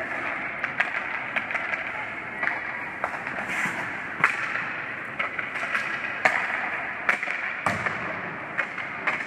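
Ice hockey play: sharp clacks of sticks on the puck and ice, scattered irregularly, over a steady rink hum with voices in the background.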